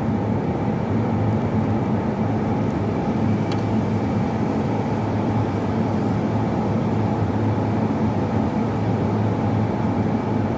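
A steady, unchanging low mechanical drone of a running motor.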